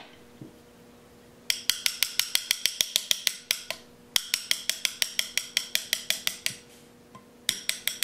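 Quick, light metal-on-metal taps on a rounded pin punch, driving the mainspring housing pin out of a 1911 pistol frame. Three runs of rapid taps, about eight a second, each with a brief ring.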